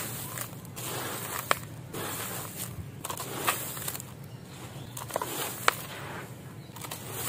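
Dry crushed concrete powder and grit crumbling through hands and falling into a plastic basin, in repeated gritty pours and crunches. A few sharp clicks come from small pieces striking the pile, one about one and a half seconds in and one near the end.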